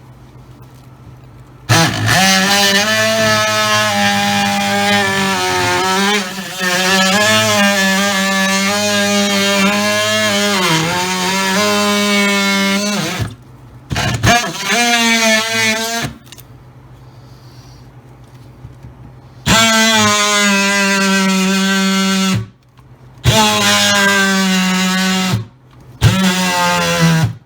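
Battery-powered oscillating multi-tool cutting through a plywood deck: a loud, buzzing whine whose pitch wavers under load, run in several spells of a few seconds with short stops between, the later spells shorter as the battery goes flat.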